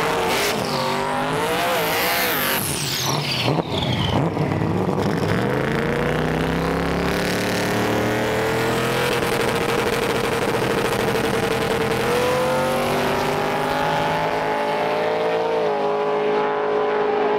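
Drag-racing engines at the starting line. Early on an engine is revved hard through a burnout, with tire squeal. After that, engines hold steady high revs on the line, then change pitch and rise as the cars launch down the track.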